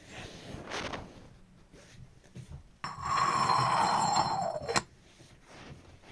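Water pouring for about two seconds, starting about three seconds in and stopping abruptly, its pitch falling near the end, with a faint high ringing above the stream.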